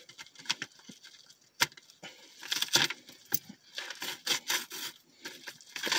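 Crinkling and rustling of a plastic Happy Meal toy bag being handled and opened, in short irregular bursts with one sharp click about a second and a half in.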